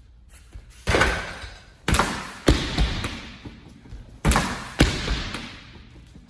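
Five hand strikes landing on a freestanding mannequin punching bag, some in quick pairs, each hit echoing and fading in the room.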